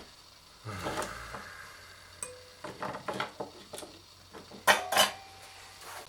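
Small metal objects clinking and clattering on a hard surface in an irregular string of knocks, with two sharp louder knocks near the end.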